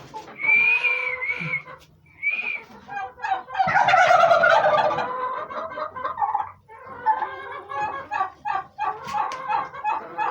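Heritage turkeys calling: two high drawn-out calls, then a loud gobble about three and a half seconds in lasting about two seconds, followed by a run of quick short notes.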